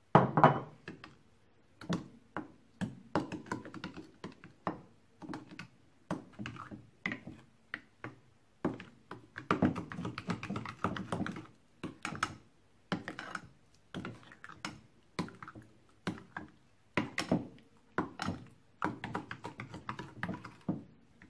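Silicone spatula stirring eggs into thick melted-chocolate batter in a glass bowl, knocking and scraping against the glass in irregular clusters of clicks and taps. The loudest knocks come right at the start.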